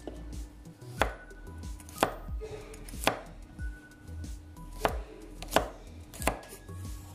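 Kitchen knife chopping through garlic cloves onto a wooden cutting board: about six separate knocks roughly a second apart, coming a little quicker near the end.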